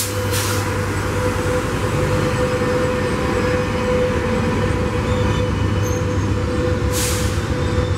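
A pair of EMD F125 diesel-electric locomotives shoving an arriving passenger train slowly past at close range, engines running with a steady low drone and a steady whine over it. A short hiss comes about seven seconds in.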